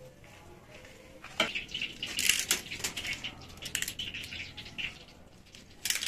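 Dry whole spices such as cinnamon sticks, bay leaves and cardamom crackling as they are crumbled by hand and scattered over raw chicken pieces in a large aluminium pot: a busy run of irregular sharp crackles and ticks that starts about a second and a half in.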